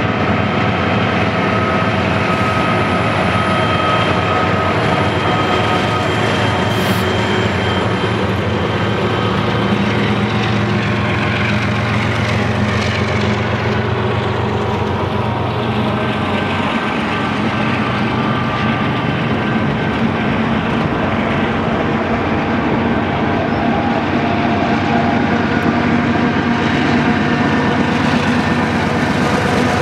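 A Union Pacific coal train passing close by: a string of diesel locomotives running under power, then coal hopper cars rolling over the rails with steady wheel noise.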